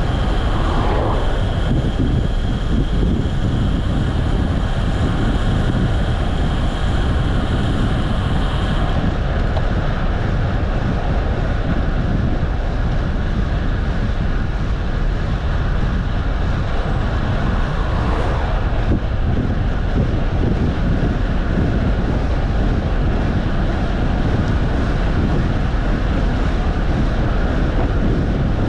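Steady wind rush buffeting the microphone of a moving bike, with a thin high whine for the first third that stops suddenly.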